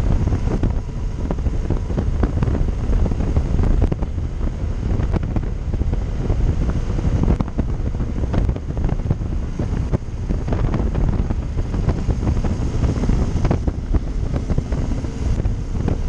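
Wind buffeting the microphone of a motorcycle riding at road speed, a constant low rumbling flutter over the bike's engine and road noise.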